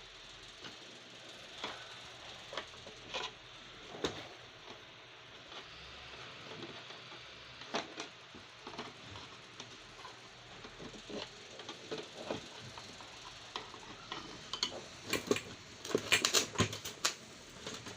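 Scattered light clicks and taps of plastic parts and screws being handled during hand reassembly of a small vacuum cleaner's casing, becoming quicker and louder near the end.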